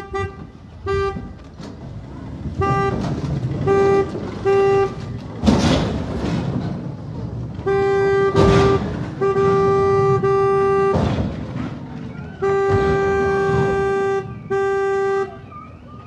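A car horn honked over and over, in short toots and long held blasts of about a second, with a few loud bangs between them.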